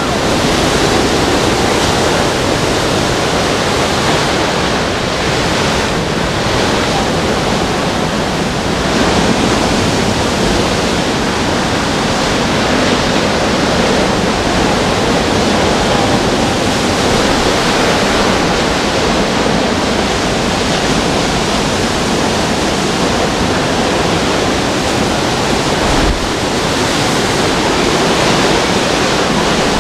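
Hurricane-force wind rushing steadily and loudly without a break, with a brief low thump near the end.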